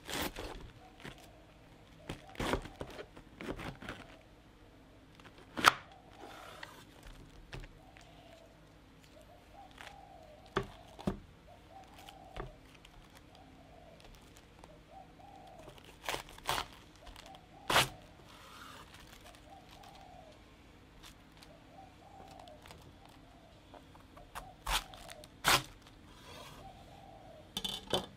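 Knife cutting through a head of green cabbage on a wooden cutting board: separate crisp crunches and knocks of the blade on the board, spaced a few seconds apart, the loudest about five seconds in. A bird gives short calls over and over in the background.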